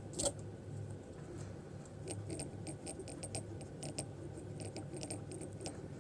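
Small brushless drone motor being turned slowly by hand close to the microphone, giving a run of faint, irregular scratchy ticks. The ticks are the sign of something rubbing inside the motor, which the owner suspects are metal filings caught in the windings.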